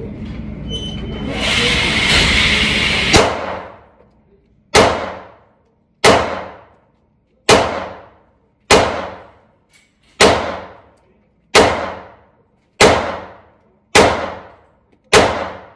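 An FMK 9C1 9mm pistol firing about ten shots at a steady pace, roughly one every 1.3 seconds, each report ringing out in the indoor range. The shots start about three seconds in, after a loud rushing noise.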